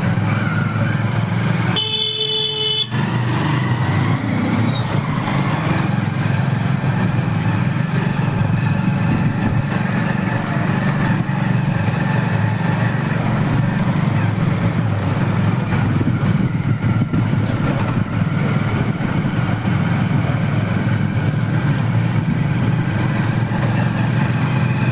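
Motorcycle engine running steadily while riding, with a vehicle horn beeping once for about a second, about two seconds in.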